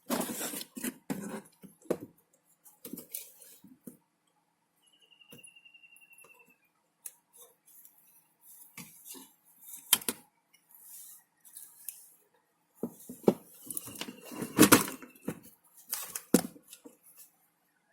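Irregular clicks, taps and clinks of small hard plastic and metal parts as a laptop is handled and taken apart on a workbench, with a louder cluster of knocks near the end. A faint, short, high falling tone sounds about five seconds in.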